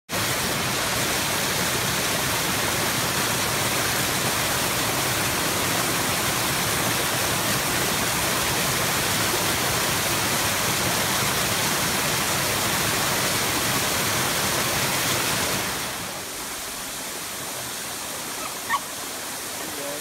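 Water rushing steadily over a small rocky waterfall in a stream. About sixteen seconds in, the rushing drops to a quieter, softer level, and a brief high squeak sounds near the end.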